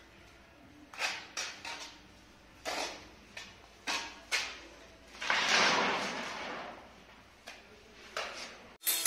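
Steel hand trowel scraping and slapping wet cement mortar onto a granite strip: a string of short scrapes, then one longer, louder scrape about five seconds in.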